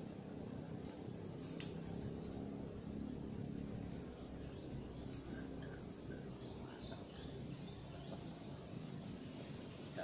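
Steady high-pitched insect trilling in forest, with a few faint bird chirps around the middle and a single light click near the start.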